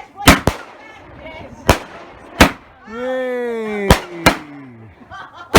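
Fireworks going off: about six sharp, separate bangs spread irregularly through a few seconds. In the middle runs a long tone that falls steadily in pitch, with faint crowd voices between the bangs.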